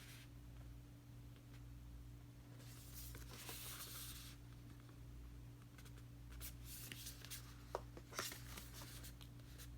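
Faint handling of album photos and paper inserts: a soft sliding rustle about three seconds in, then scattered light taps and rustles later on, over a steady low hum.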